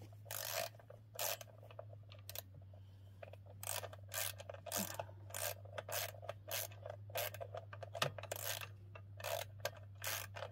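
Socket ratchet wrench working a bolt in short, irregular rasping strokes, about two a second.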